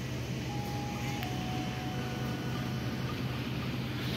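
Steady low machinery hum of a passenger train standing at a station, with a few faint thin steady tones coming and going above it.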